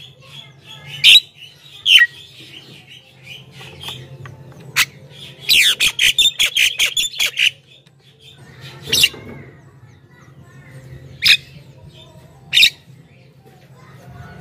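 Javan myna calling: loud, sharp, harsh single calls at irregular intervals, with a rapid chattering run of notes about midway through.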